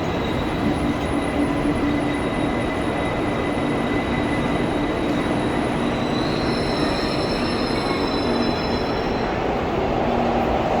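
Train running on the track with a steady rumble and several high-pitched squealing tones held for seconds, one stepping up in pitch about six seconds in, typical of wheel squeal.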